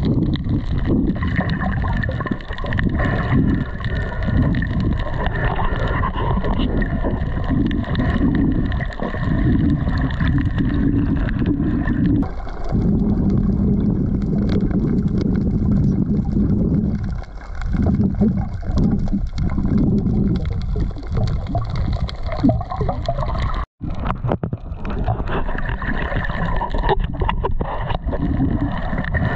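Loud, continuous churning and gurgling of water close to a GoPro, over a low steady drone. It cuts out for an instant once, near the end.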